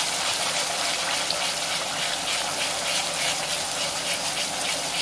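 Raw onion-and-coriander paste sizzling steadily in hot oil in a steel kadhai as its moisture cooks off, stirred with a steel spoon.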